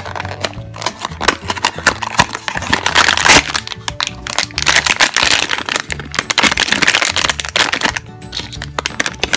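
Foil blind-bag wrapper crinkling and crackling as it is handled and torn open, a dense run of sharp crackles. Background music plays underneath.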